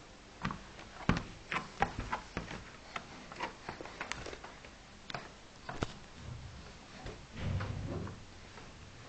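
Camera handling noise as a toddler's hands touch and grab the camera: irregular clicks and knocks, then a low rubbing rumble near the end.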